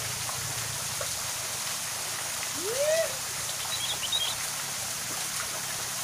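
A small waterfall pouring into a pool, a steady rush of splashing water. About halfway through comes one short call that rises and falls, and faint high bird chirps follow about a second later.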